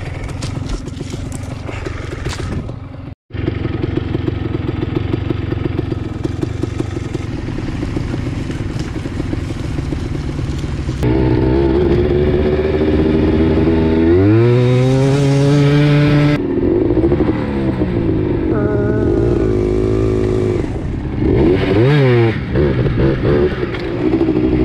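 ATV engine running under way, cutting out for a moment about three seconds in, then louder in the second half as it revs up and eases off twice.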